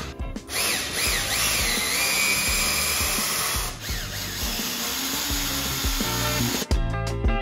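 Cordless drill-driver backing wood screws out of an OSB crate panel: the motor whine wavers up and down in pitch, then runs steady. Music with a plucked rhythm comes in near the end.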